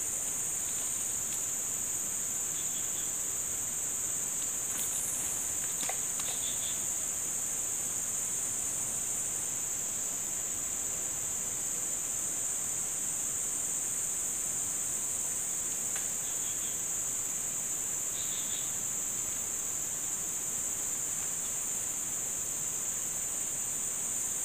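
Steady, unbroken high-pitched drone of an insect chorus, with a few faint short chirps now and then.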